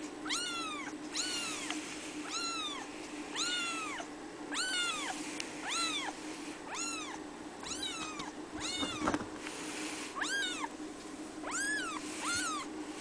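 Three-week-old red Abyssinian kitten meowing over and over: about a dozen high, thin calls, each rising and then falling in pitch, roughly one a second. A low steady hum runs underneath, and a brief rustle comes about nine seconds in.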